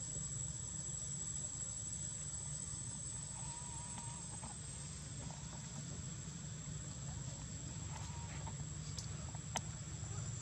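Outdoor ambience: a steady, high-pitched insect drone over a low steady hum, with a few faint short chirps and a sharp click near the end.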